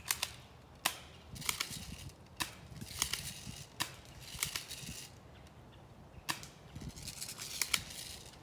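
Airsoft pistol firing: about ten sharp, single snapping shots at an irregular pace, with a pause of a second or so past the middle.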